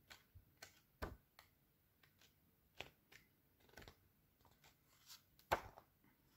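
Sheets of a paper pad being turned one after another: faint, short rustles and flicks of card-weight patterned paper, about ten in all, the loudest a little past five seconds in.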